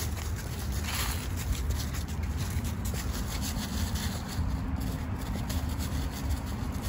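Footsteps and a dog's paws crunching and rustling through dry fallen leaves over a steady low rumble. The crunching thins out after about four seconds.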